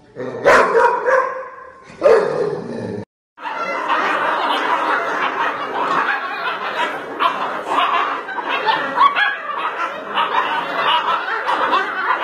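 A litter of puppies yapping and whining all at once, a dense unbroken clamour from about three seconds in. Before that, two short bursts of a woman laughing.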